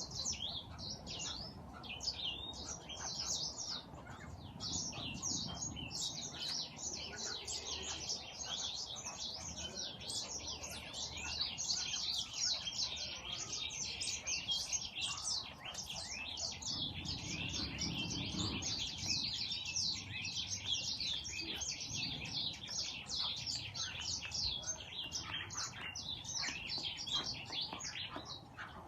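A flock of birds chirping continuously, many high, short chirps overlapping in a dense chatter.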